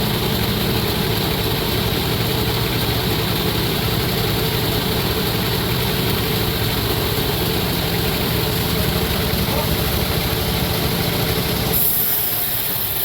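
Sawmill machinery running steadily with an engine-like drone; the sound changes abruptly near the end.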